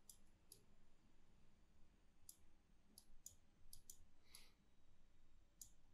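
Faint computer mouse clicks, about ten scattered irregularly, over near-silent room tone.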